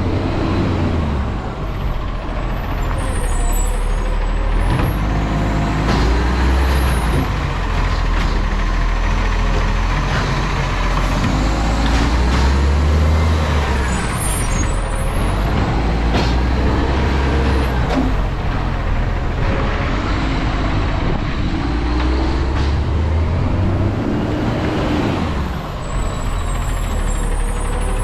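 Garbage truck's diesel engine running, its revs rising and falling again and again, with short hisses of air a few times.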